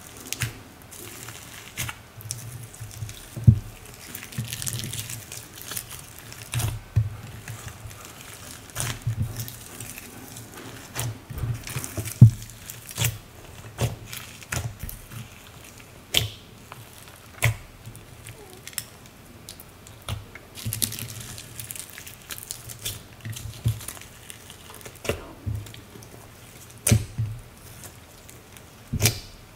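Slime loaded with glitter, sequins, pearl beads and clay being squished and folded by hand: irregular wet squelches with many sharp clicks and pops.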